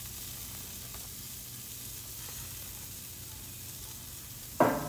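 Beef skewers sizzling steadily over a charcoal grill. A short, loud exclamation from the man comes near the end.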